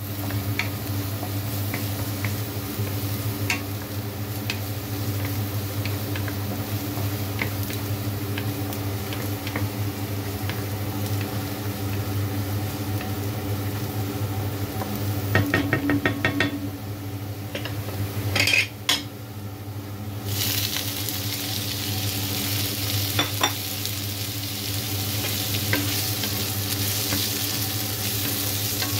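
Minced garlic sizzling in oil in a nonstick wok while it is stirred, with scattered scrapes and taps of the utensil against the pan. About two-thirds of the way through there is a quick run of taps and a couple of loud knocks, then the sizzle drops briefly and comes back stronger once asparagus is in the pan. A steady low hum runs underneath.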